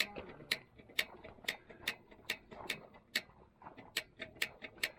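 Propane heater's spark igniter clicking at a steady pace, about two to three clicks a second, as it tries to light on propane not yet worked through the lines of a heater unused for a while.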